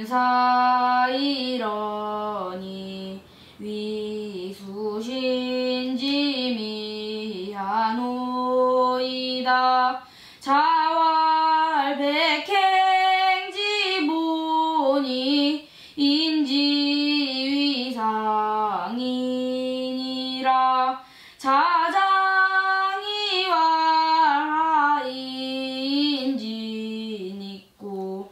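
A single high voice chanting a classical Chinese text in the Korean seongdok style, in drawn-out sung phrases of two to three seconds with short breaks between them.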